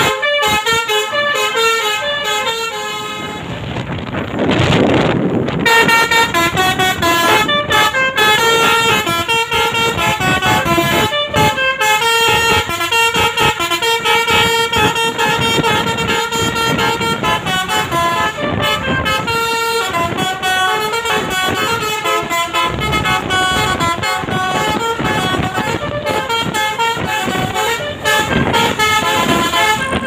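A tour coach's telolet basuri, a multi-tone musical air horn, playing a long melody note after note, some notes short and some held. A brief rush of noise about four seconds in.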